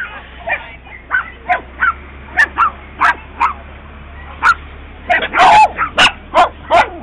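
Small penned dogs barking and yipping in short, sharp barks about every half second, growing louder and more frequent about five seconds in, with one longer drawn-out bark.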